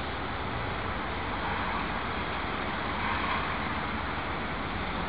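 Steady outdoor background noise: a low rumble with a hiss over it, with no distinct events.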